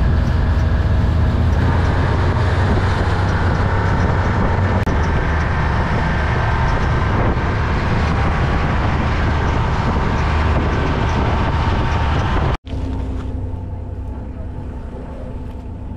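Steady engine and tyre noise of an open-cab military side-by-side utility vehicle, heard from the driver's seat while driving on paved and gravel road. It cuts off abruptly about three-quarters of the way through, giving way to a quieter steady low hum.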